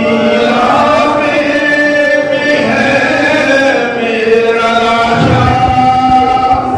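A noha, a Shia lament, recited in a chanted melody with long drawn-out notes that slide in pitch.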